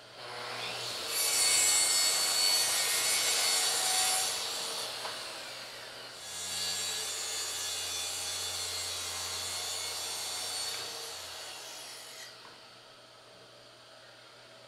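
Makita plunge track saw cutting 3/4-inch plywood along its guide rail, in two spells: the first, loudest stretch runs through the first few seconds, and a second cut goes from about six to twelve seconds. Then it stops, leaving a low steady hiss.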